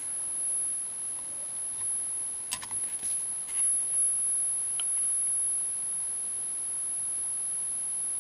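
Steady background hiss with a thin, constant high whine, and a few sharp clicks around the middle.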